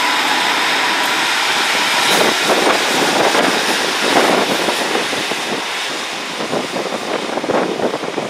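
Class 150 diesel multiple unit pulling out alongside the platform: a steady rush of its underfloor diesel engines and wheels, with a faint steady tone, easing off after about two seconds. Wind gusts then buffet the microphone.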